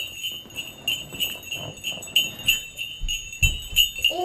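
Sleigh bells jingling in a steady rhythm, about three shakes a second, with a low thump about three and a half seconds in.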